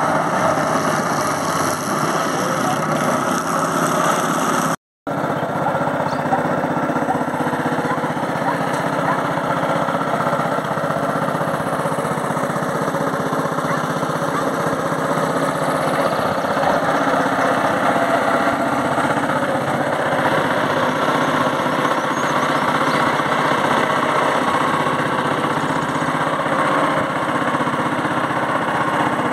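Small boat motor running steadily at an even speed, cutting out for an instant about five seconds in.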